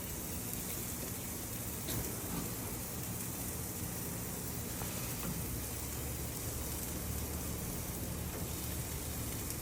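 Chicken breasts and buttered buns sizzling on a grill: a steady hiss with a couple of faint ticks.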